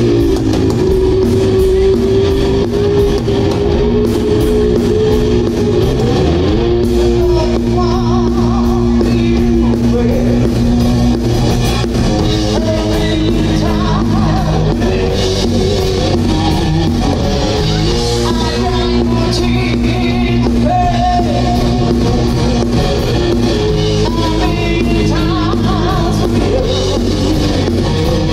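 Live rock band playing: an electric guitar holding long lead notes over bass guitar and a drum kit.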